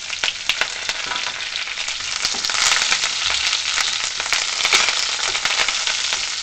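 Fresh curry leaves sizzling and spluttering in hot oil, a steady hiss full of small crackling pops. A wooden spatula stirs them around the pan, and the sizzle swells a little midway.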